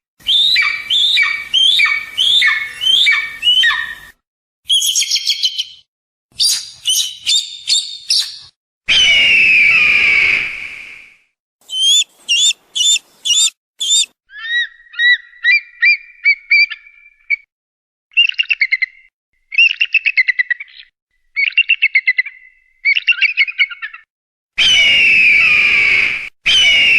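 Hawk calls in a string of separate recorded segments with dead-silent gaps between them: a run of sharp descending cries, quick chattering series, and long descending screams about nine seconds in and again near the end. It is a recording of hawk calls meant to be played to scare other birds away.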